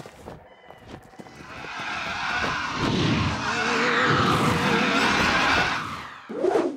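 Cartoon whoosh sound effect that swells from quiet to loud over a few seconds as a bat flies toward the viewer, with a wavering tone in the middle. Near the end comes a short rising cry from the bat.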